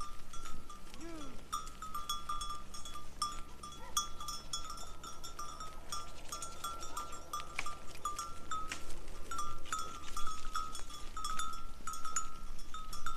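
Sheep bells on a grazing flock clanking irregularly as the animals move, many short metallic rings on much the same pitch.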